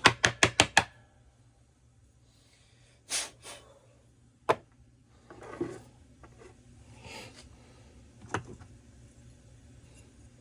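Hand tools and chainsaw parts being handled during a teardown: a quick run of five sharp clicks at the start, then scattered single knocks and short rustles.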